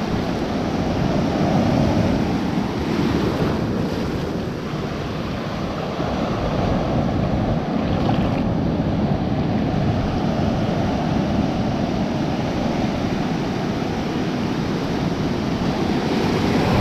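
Ocean surf washing in and out through shallow water, a steady rushing wash, with wind buffeting the microphone.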